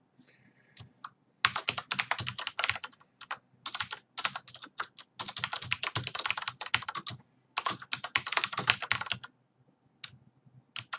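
Typing on a computer keyboard: quick runs of keystrokes in bursts with short pauses, starting about a second and a half in and trailing off near the end.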